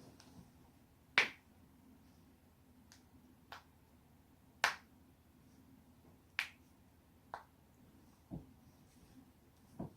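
Joints being cracked: a string of sharp pops, about seven in all, spaced a second or so apart, the loudest about a second in and near the middle. Near the end come two duller, lower knocks.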